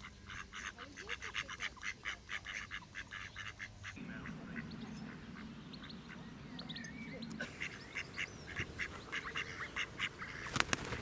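Mallard drakes giving runs of quick, short, raspy notes, about five a second, which stop for a few seconds and then start again. A sharp click comes near the end.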